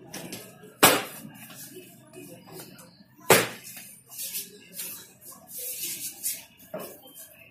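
Handling noise from a wheelchair's frame and parts: two sharp knocks about two and a half seconds apart, then lighter rustling and scuffing.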